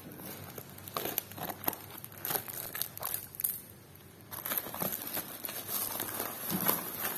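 Black plastic parcel wrapping crinkling and rustling as it is cut with scissors and pulled off a taped, bubble-wrapped package, in irregular bursts with a quieter pause about three to four seconds in.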